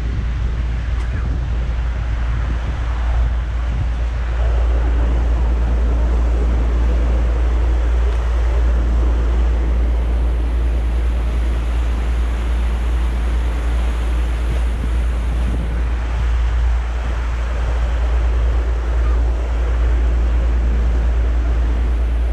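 Wind rumbling on the microphone on the open deck of a moving harbour ferry, with the wash of water along the hull and the boat's steady running noise beneath. The sound is loud and even throughout.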